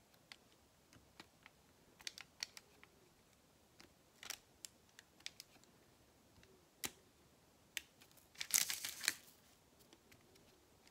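Light clicks and taps of a diamond-painting drill pen picking round drills out of a plastic tray and pressing them onto the canvas. A brief burst of rattling clicks comes about eight and a half seconds in, as drills are shaken in the tray.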